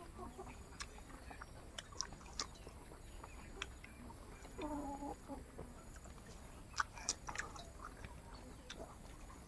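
Close-up eating sounds: crunching bites of raw cucumber and chewing of rice and curry, with sharp wet mouth clicks scattered throughout, the loudest about seven seconds in. A chicken clucks briefly about halfway through.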